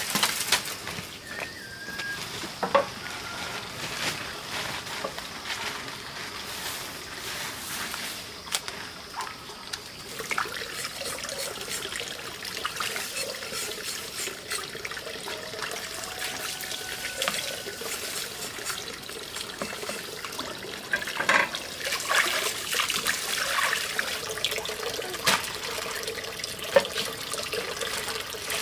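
Water sloshing and splashing in a plastic basin as something is washed by hand, with many small splashes and knocks, busier near the end.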